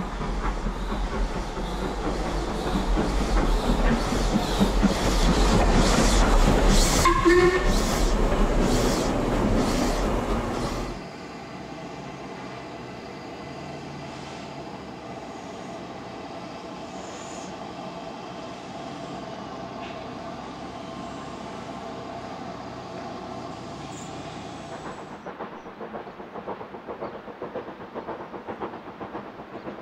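Black 5 two-cylinder 4-6-0 steam locomotive working hard up a steep 1-in-49 gradient on a running-in test run, its exhaust loud and building, with a short whistle about seven seconds in. About eleven seconds in the sound drops suddenly to the engine running much more quietly and steadily.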